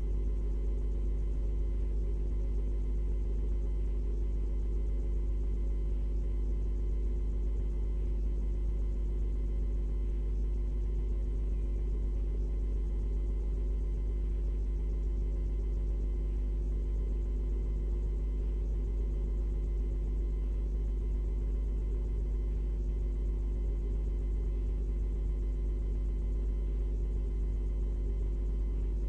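Steady electrical hum with a deep low drone and several constant tones above it, unchanging throughout, with no other sounds.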